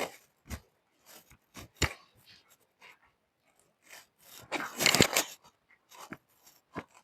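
Fabric rustling and handling noises from a jacket being adjusted on the body, with scattered small clicks and a longer, louder rustle about five seconds in.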